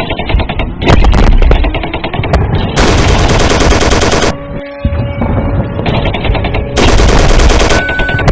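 Emergency-alarm sound collage of loud, continuous machine-gun fire and gunshots. A steady tone runs through the middle, and a short high beep starts near the end.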